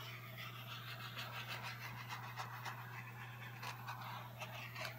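Paintbrush scrubbing and dabbing over a canvas wet with paint: a quick, irregular run of soft scratchy strokes over a steady low hum.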